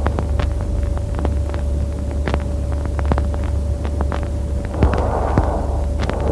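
Auscultation recording of Biot's breathing through a stethoscope: over a steady low hum with scattered clicks, a single breath sound comes about five seconds in after a long pause. Breaths separated by pauses are the sign of this abnormal breathing pattern.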